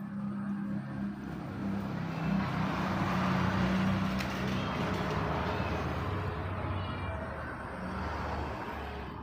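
A motor vehicle passing, its rushing noise swelling to a peak about three to four seconds in and then fading, over a low engine hum.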